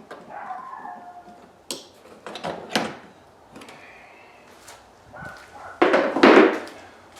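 Hard parts being worked loose in an engine bay as the stock air box is removed: squeaks, knocks and clicks, with a loud scraping clatter about six seconds in.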